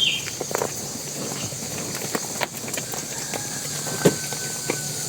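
Cattle hooves stepping: irregular single knocks and clicks, the sharpest about four seconds in, over a steady outdoor hiss.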